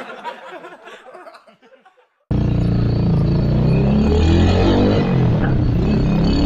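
Motorstar Z250R cafe racer motorcycle's engine running under way, its pitch wavering and rising and falling a little, over a steady rush of road and wind noise. It cuts in abruptly about two seconds in, after a group's laughter fades out.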